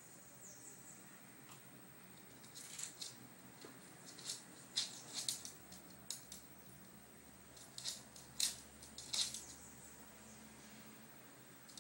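Faint, irregular clicks and scuffs from a chihuahua's claws and paws on a hard floor as it plays, in small clusters with the sharpest ticks a little over halfway through.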